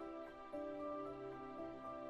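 Soft instrumental background music with slow, held notes.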